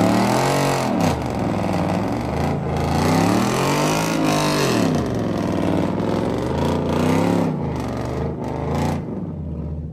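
A car engine revving up and down in three long sweeps, each rising then falling over a second or two, against a steady rushing noise; the engine cuts off sharply about nine seconds in.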